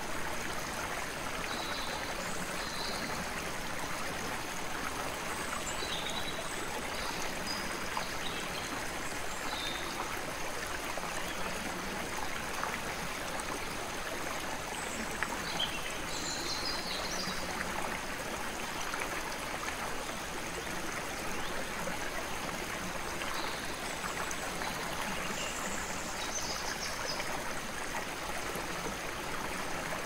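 Creek water running steadily, with birds chirping now and then over it.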